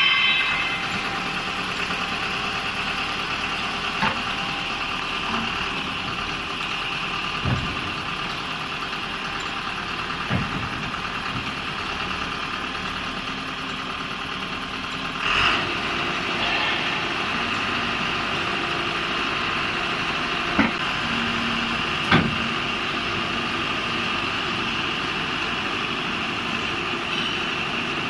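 Backhoe loader's diesel engine running steadily while the rear backhoe arm is worked, with a few short knocks from the machine along the way.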